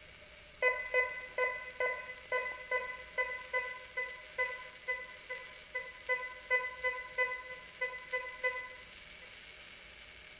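Thracian Manual Ground 18 kHz metal detector sounding a run of short pitched beeps, about two to three a second, as a tiny gold nugget in a plastic bag is swept back and forth past the search coil. Each beep is the detector signalling the small gold target. The beeps stop about nine seconds in.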